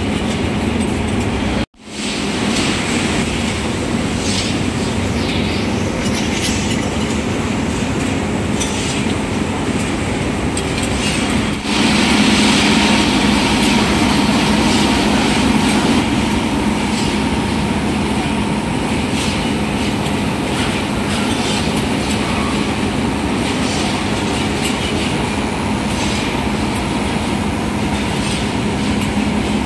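Continuous match-making machine running: a steady loud mechanical rumble and clatter from its chain of splint-carrying frames, with a steady hum underneath. The sound breaks off for an instant about two seconds in.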